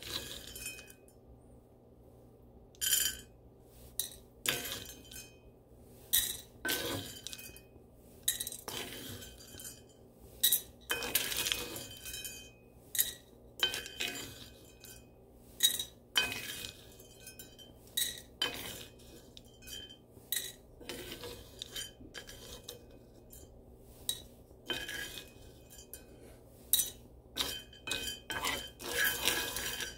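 Dark-roasted coffee beans stirred in a cast iron skillet with a wooden spatula: the beans rattle and clink, and the spatula scrapes and knocks on the pan in irregular bursts with short pauses between.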